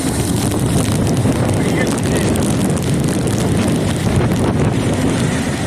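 Strong storm wind buffeting the microphone: a loud, steady rushing roar.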